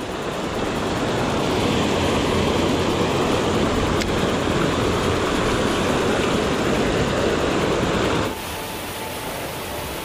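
Mountain creek water rushing steadily. It drops suddenly to a quieter rush about eight seconds in.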